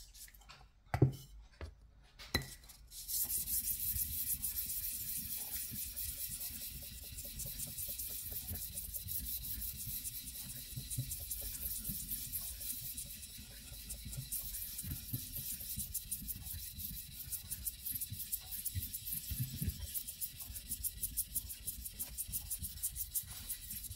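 Steel tappet from a Dnepr 650 engine being lapped by hand on wet 600-grit sandpaper over a flat steel plate: a steady scratchy rubbing in quick repeated strokes. This is the fine finishing stage that leaves a smooth face on the tappet. Two sharp knocks come in the first few seconds, before the rubbing starts.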